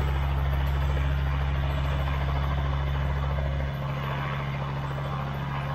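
Robinson R22 Beta helicopter running on the ground before takeoff. Its four-cylinder piston engine and turning rotor make a steady low drone, and the deepest rumble drops away abruptly a little past halfway.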